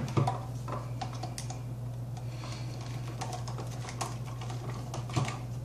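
A hand screwdriver works a terminal screw on a GFCI receptacle, fastening the ground wire: irregular light clicks and ticks of metal on metal, over a steady low hum.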